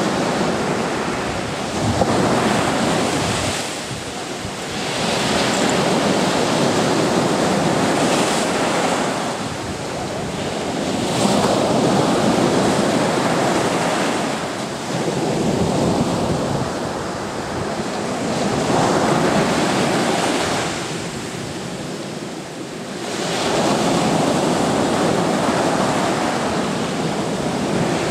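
Sea waves breaking on a beach. The wash of surf swells and ebbs with each wave, every few seconds.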